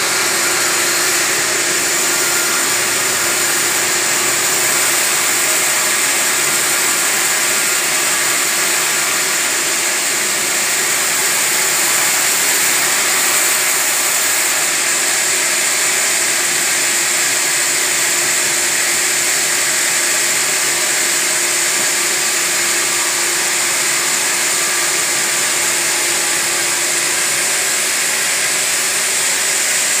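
Sawmill band saw running steadily while ripping a long timber lengthwise: an even, loud machine noise with a constant whine.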